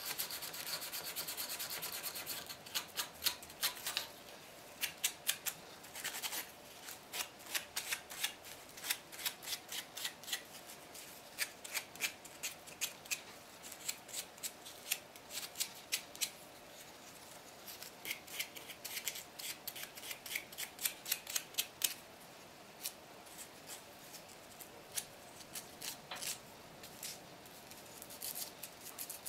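Wood being rubbed by hand in quick, short strokes, as in hand sanding, in runs with brief pauses between them.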